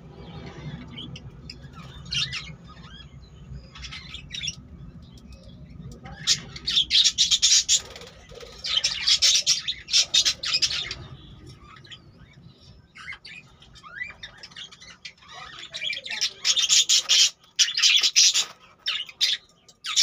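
A flock of budgerigars chirping and chattering, with scattered single chirps and three loud spells of dense, shrill chatter about six, nine and sixteen seconds in.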